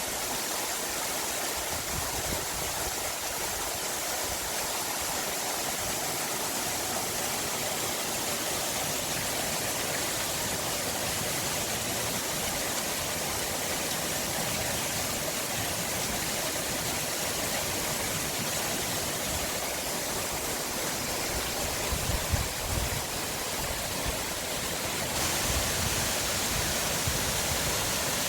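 Forest stream running steadily, a continuous rush of water, with a few brief low rumbles about two thirds of the way through.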